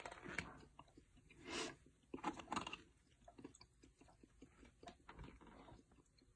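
Faint handling noises of small computer parts: scattered light clicks and a few short rustling, crinkling scrapes.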